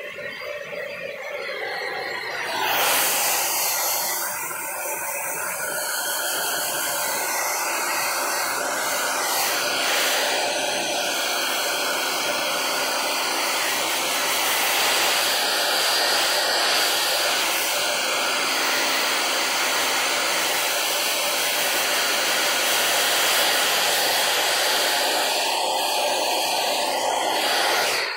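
Handheld hair dryer blowing steadily, an even rush of air that comes up to full strength about three seconds in.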